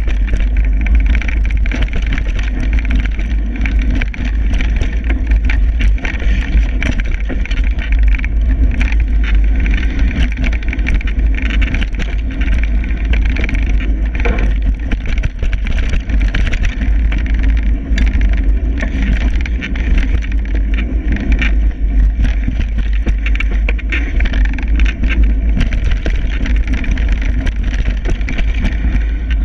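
Mountain bike riding fast down a dirt singletrack: heavy wind rumble on the point-of-view camera's microphone, with tyre noise on the dirt and frequent clicks and knocks as the bike rattles over bumps.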